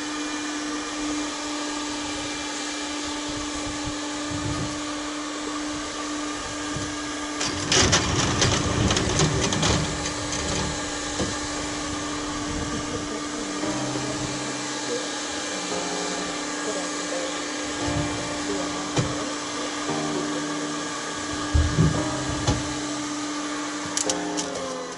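Two electric heat guns blowing steadily, a fan hiss with a constant hum, heating plastic rail to soften it for bending; it cuts off shortly before the end. A few knocks and clatters come about a third of the way in and again near the end.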